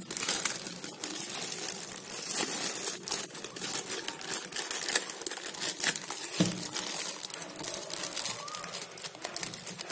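Clear plastic bag crinkling and rustling as hands handle it and pull it off a camera, with one low thump a little past halfway.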